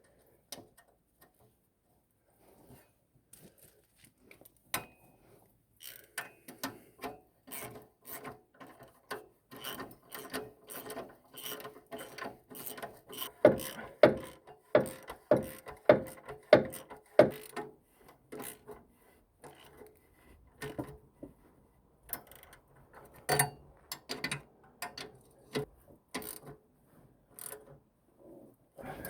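Hand tools working on the truck's exhaust fittings: scattered metallic clicks, scraping and rubbing, with a run of about six louder, evenly spaced knocks around the middle.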